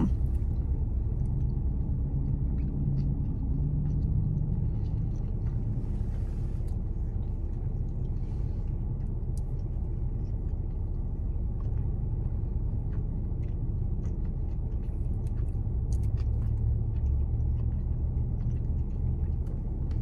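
Steady low rumble inside a parked car's cabin, with a few faint small clicks.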